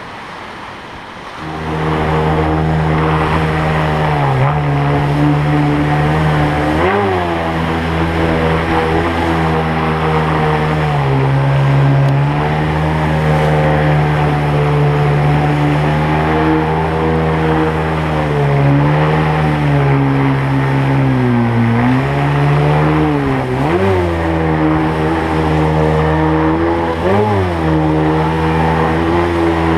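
Mercury 25 jet outboard motor running hard as the tunnel boat climbs fast whitewater. Its pitch holds high but dips briefly and recovers several times. The first second or so, before the motor comes in, is the rush of the river.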